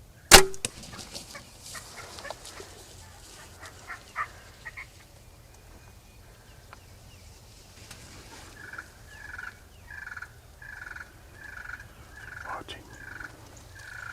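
Turkey yelping: a steady run of short, evenly spaced notes at about two a second through the second half. A sharp, loud knock comes just after the start, and a single falling call sounds near the end.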